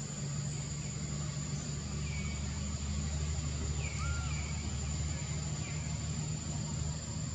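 Steady low motor hum under a continuous high insect drone, with a few short, high, falling chirps in the middle.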